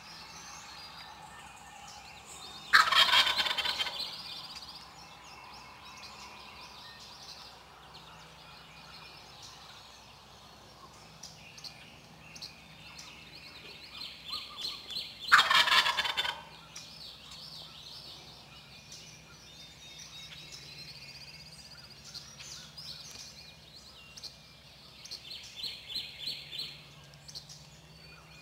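Eastern wild turkey gobbler gobbling twice, a loud rattling gobble about three seconds in and another about twelve seconds later. Small birds chirp faintly in between.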